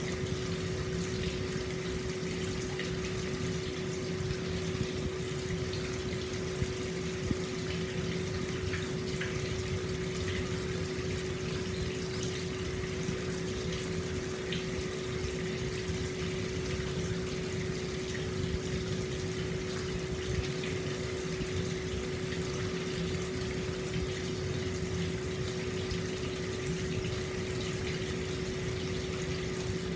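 Hot-spring water flowing steadily out into an open-air bath, an even splashing rush with a steady low hum underneath.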